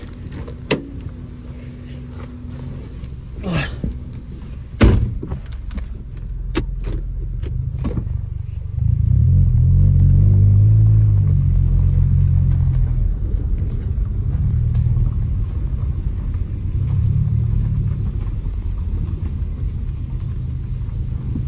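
Inside the cabin of a 2001 Toyota Corolla's 1.8-litre four-cylinder car: a few clicks and a loud thump about five seconds in, then the engine's low rumble rises about nine seconds in as the car gets under way, swelling and easing a few times. The owner says the car has an exhaust leak.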